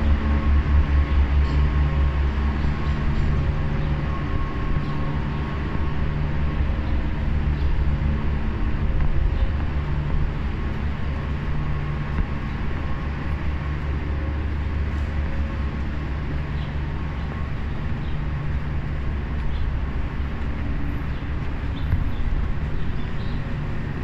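Steady low mechanical hum with a few faint steady tones above it, over the noise of a city street.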